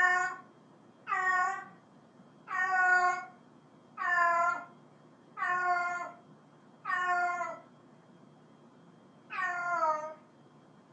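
Domestic cat meowing repeatedly, seven calls each under a second long, spaced about a second and a half apart with a longer gap before the last one: a cat calling out to another cat.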